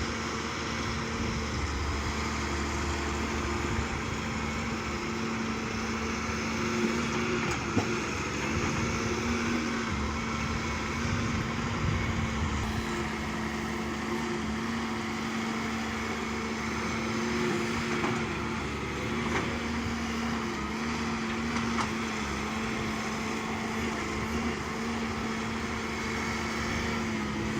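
Diesel engine of heavy construction machinery running steadily with an even hum and a few faint knocks.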